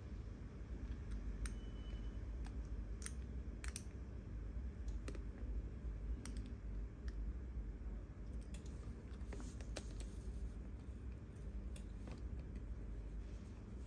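Faint, irregular small clicks and taps as a phone and its film-covered replacement screen are handled and pressed, over a low steady hum.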